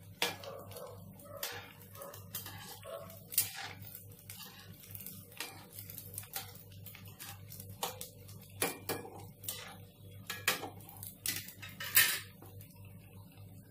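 A metal slotted spoon clinking and scraping against a metal kadhai as rice balls are turned in hot oil: irregular light knocks, the loudest about three seconds in and near the end, over the faint sizzle of deep-frying oil.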